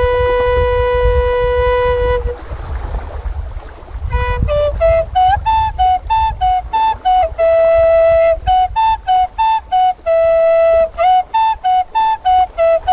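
Flute melody: one long held note, a pause of about two seconds, then a run of short stepping notes broken by two longer held notes. A low rumble runs underneath.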